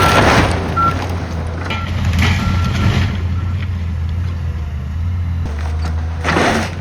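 Heavy demolition machinery with a diesel engine running steadily, its backup alarm beeping a few times in the first half. Loud crunching of debris comes at the start, again after about two seconds, and near the end.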